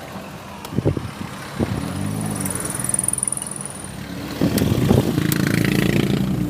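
A car engine running, its pitch rising and falling, with a few sharp knocks and thumps.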